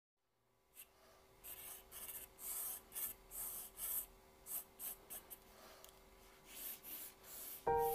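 Mechanical pencil lead scratching across paper in a series of short, light strokes as guide lines are sketched.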